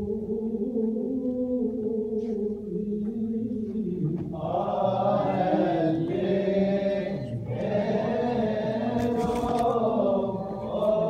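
A group of voices holding long, drawn-out notes together, with a higher set of voices joining about four seconds in. A few sharp clicks come near the end.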